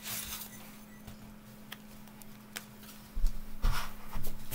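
Handling and movement noises: a few light clicks, then heavier low thumps and rustling from about three seconds in, over a faint steady low hum.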